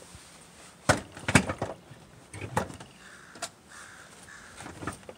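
Toyota Tundra passenger seat being shifted and wiggled into place on the cab floor: sharp knocks and clunks, the two loudest about a second in, then a few lighter knocks.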